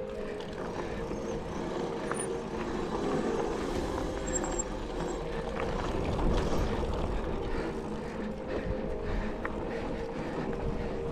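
Mountain bike riding over a dirt trail: tyre rumble, wind on the microphone and small rattles and clicks from the bike, over a steady hum.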